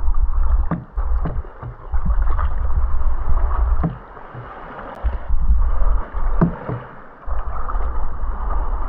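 Kayak paddles dipping and splashing in seawater, with short knocks and a low rumble on the microphone that comes and goes.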